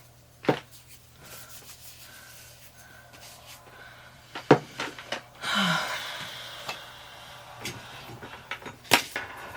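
Handling noises as things are moved and disconnected: a few sharp clicks and knocks, and a rustling rub about five and a half seconds in.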